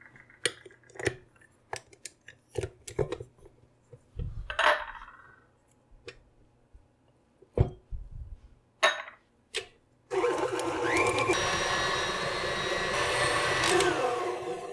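Scattered taps and knocks of a spatula against a stainless steel mixing bowl as softened butter is scraped in. About ten seconds in, a tilt-head stand mixer starts and runs with a steady motor whine, its flat beater creaming the butter, then winds down near the end.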